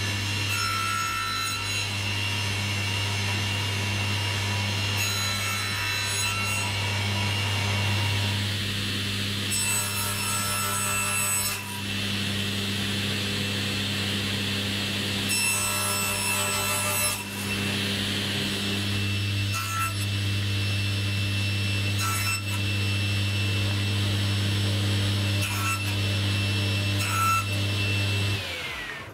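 Table saw running steadily with a low hum and a high whine, its blade cutting through pieces of wood several times over, each cut lasting a second or two. Near the end the whine falls in pitch and the sound cuts out.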